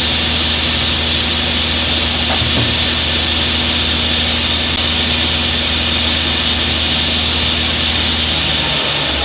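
Sliding table saw running steadily: a constant motor hum under a loud, even hiss, with the low hum changing pitch near the end.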